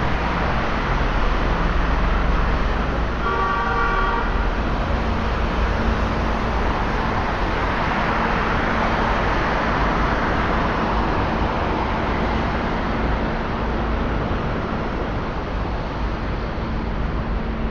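Road traffic on a wet, flooded street: a steady hiss of tyres through water over running engines. One vehicle horn toots for about a second, about three seconds in.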